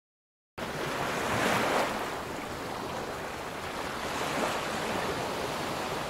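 Rushing-water sound effect, a steady surf-like wash that begins suddenly about half a second in and swells and eases in slow surges.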